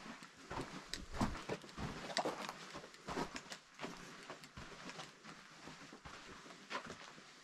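Footsteps on a trail: an uneven run of short scuffs and steps, about one or two a second.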